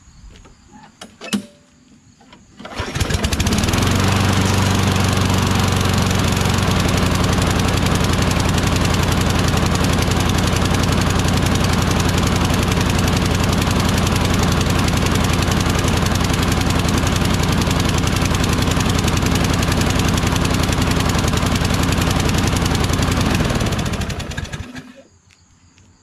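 Briggs & Stratton Quantum 6.75 single-cylinder lawn mower engine starting about three seconds in, then running steadily before cutting off near the end. The owner thinks it seems to be still choking, which he later traces to a bent choke flap.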